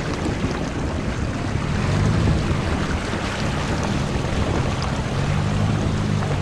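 Truck engine running under steady load while driving, with tyre rumble and wind buffeting the camera microphone; the engine note swells about two seconds in and again near the end.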